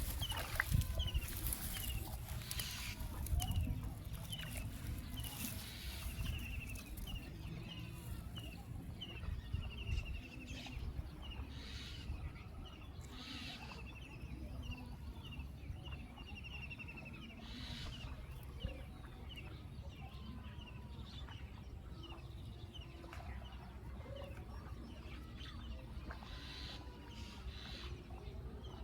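A bird calling over and over: short high chirps, more than one a second, with a few rattling trills among them. A low rumble runs underneath and is loudest in the first few seconds.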